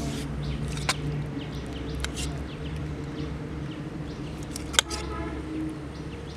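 A serving spoon knocking against a stainless-steel tiffin and plate a few times, the loudest knock about five seconds in. Birds chirp faintly over a steady low hum.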